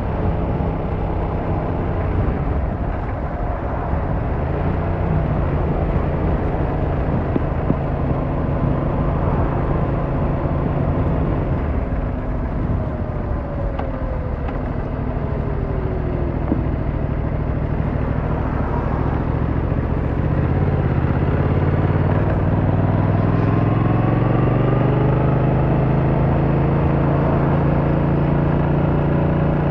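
Yamaha MT-07's 689cc inline-twin engine running under way, heard from the rider's seat. Its note holds fairly steady at first, then rises in pitch from about twenty seconds in as the bike accelerates, and stays high near the end.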